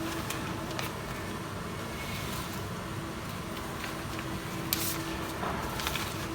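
Machinery on a urine bag film welding and cutting line running with a steady hum, with a few sharp clicks and one short hiss about three-quarters of the way through.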